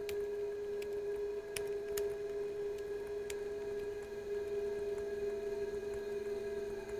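Steady electronic drone tone from the film's sound design, with a few sharp clicks scattered through the first half.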